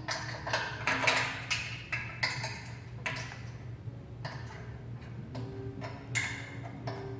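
Pneumatic power hammer clanking and hissing irregularly as its ram is raised and adjusted: sharp metallic knocks and short bursts of air, several a second at first, then sparser, over a steady low hum.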